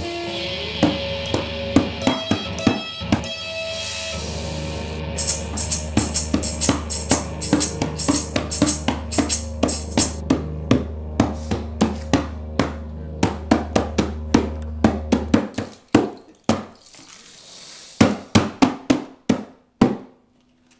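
A didgeridoo drone, joined about five seconds in by a tambourine struck in a quick, steady rhythm. About three-quarters of the way through the drone stops, leaving a few separate tambourine hits and a short shake.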